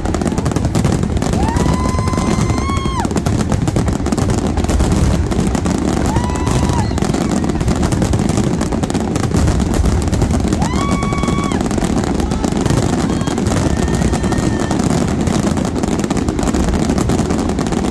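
Fireworks finale barrage: a continuous rapid-fire string of shell bursts and crackling reports with no gaps. Several high tones, each a second or two long, rise and then hold steady above the barrage.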